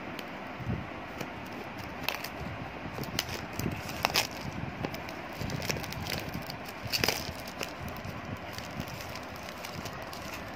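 Plastic shrink-wrap crinkling and crackling as it is cut and peeled off a cardboard box, with the sharpest crackles about four and seven seconds in, over a steady background hiss.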